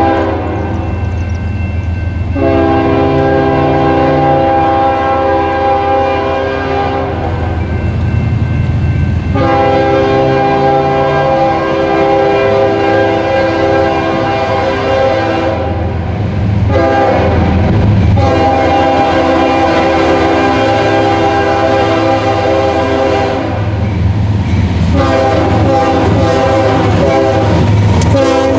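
A Nathan K5HL five-chime air horn on a CSX GE ES40DC locomotive blowing loud long blasts as the train approaches: long, long, short, long, the grade-crossing pattern, then another long blast. A steady low rumble of the diesel locomotives runs beneath, and near the end the locomotives pass close by with wheels clacking on the rail.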